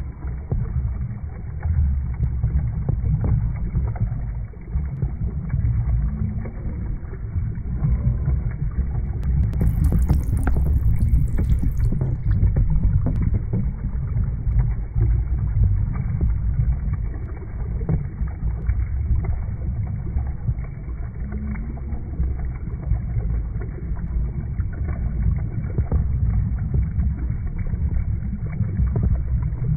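Muffled, deep rumble of moving water, continuous and churning, with most of its weight in the low end.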